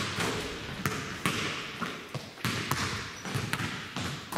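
Basketballs bouncing on a hardwood gym floor, irregular dribbles about once or twice a second, each bounce echoing in the large gym.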